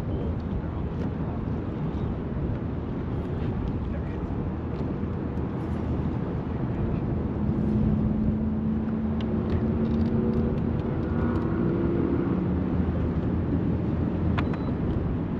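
Steady low wind rumble on the microphone with the noise of open water, and a faint steady hum through the middle.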